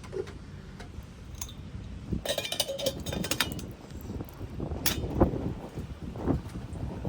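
Metal camp gear being handled: a run of ringing clinks and rattles, then a sharp knock and a few lighter knocks, like a small metal wood stove and kettle being set up.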